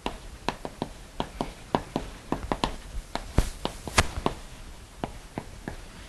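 Chalk tapping and scraping on a blackboard as words are written: a quick, irregular run of sharp clicks, several a second, with one louder knock about four seconds in.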